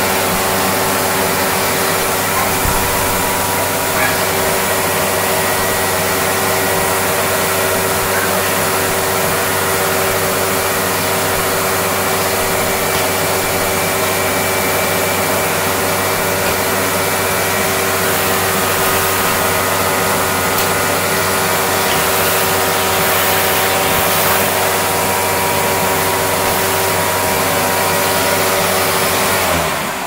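Hoover WindTunnel Twin Chamber upright vacuum cleaner with a Maytag motor, running steadily with a high whine while its hose wand sucks at a tiled floor. The motor starts to wind down right at the end.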